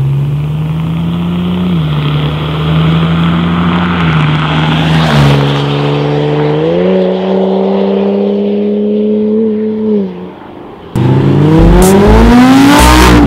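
BMW 335i's turbocharged straight-six through a custom exhaust, driving past and away under acceleration, its pitch stepping up and down several times before it fades near ten seconds. From about eleven seconds, electronic music with a rising sweep.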